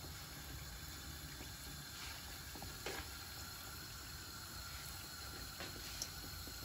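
Hot vegetable oil sizzling steadily around meat-filled yeast-dough belyashi as they deep-fry in a pan, with a few small crackles.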